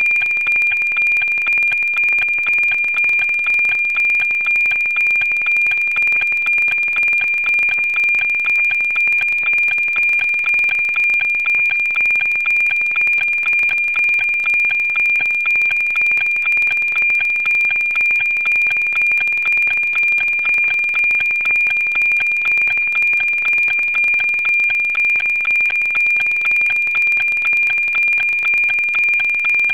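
NOAA-19 weather satellite's APT image signal, received on 137.1 MHz and played as audio: a steady, loud high-pitched tone over hiss, pulsing in an even tick-tock rhythm. Each tick marks an image line being sent, here being decoded into a weather picture.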